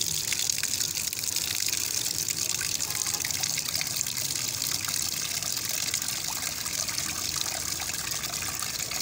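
Water gushing steadily from an open ball-valve tap, splashing onto concrete and into a clay bowl as it fills.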